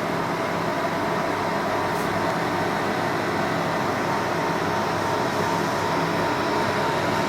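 Cooling fans of a running HP server, a steady even whir with a faint constant whine.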